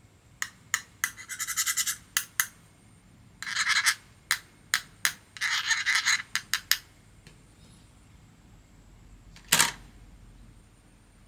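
Sharp clicks and three short rasping scrapes of a tool prying at the plastic housing of a portable Bluetooth speaker to free its passive radiator, followed by a single louder knock near the end.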